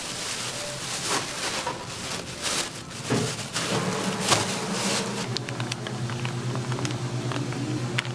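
Thin plastic bags filled with rice flour crinkling and rustling as they are knotted and set down, over a steady low electrical hum. The rustling dies away about five seconds in, leaving the hum and a few light clicks.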